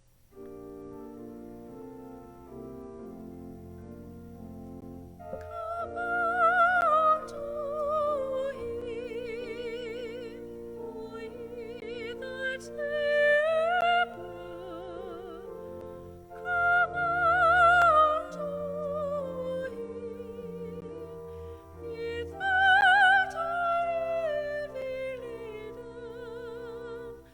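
Classical solo singing with wide vibrato over a sustained keyboard accompaniment. The accompaniment starts alone about half a second in, and the voice enters about five seconds in, in long held phrases.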